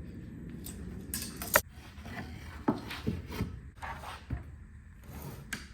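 Pine fence picket being handled and measured: scattered knocks, clicks and rubs of wood, the sharpest click about a second and a half in.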